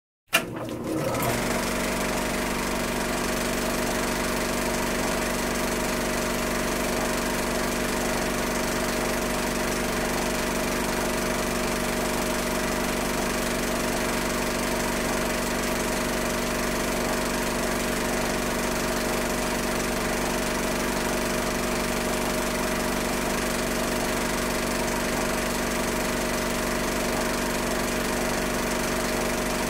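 Film projector running: a steady mechanical whir with a constant hum, starting abruptly just after the start.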